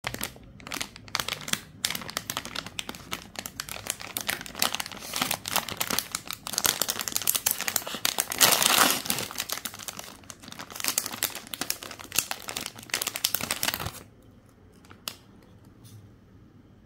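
Plastic Dairy Day Choco Krisp ice-cream wrapper crinkling as it is handled and pulled open at its seal, loudest about halfway through as the seal tears. The crinkling stops a few seconds before the end, leaving only a few faint ticks.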